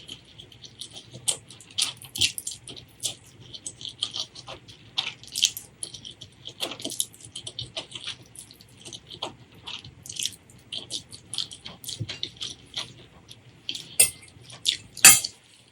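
Close-miked mouth sounds of eating: wet chewing with many quick, irregular smacks and clicks, and a couple of louder wet smacks near the end.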